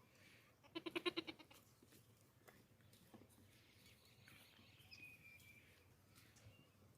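A baby goat bleats once, a short quavering call of about half a second, about a second in.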